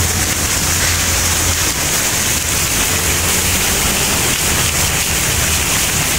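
Steady, loud rushing noise, even across the range like falling water or wind on a phone microphone, with a low hum that fades after about a second and a half.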